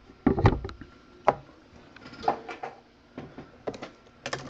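A series of short, irregular knocks and taps from things being handled and set down on a wooden desk.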